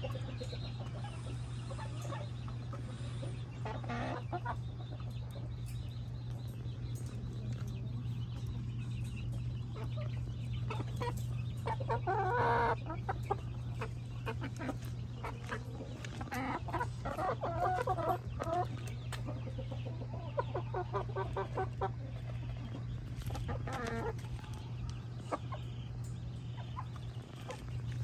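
Chickens clucking and calling on and off, with a louder, longer call about twelve seconds in, over a steady low hum.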